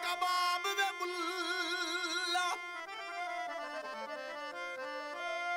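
Live Sufi folk music, an instrumental passage without drums: a sustained, reedy melody line with vibrato over held notes that step in pitch.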